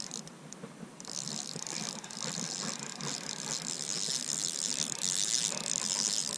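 Spinning reel being cranked in a steady retrieve, a continuous whirring of its gears that pauses briefly near the start and then runs on.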